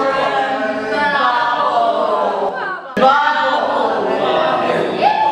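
A group of voices singing together without instruments, with an abrupt break about three seconds in.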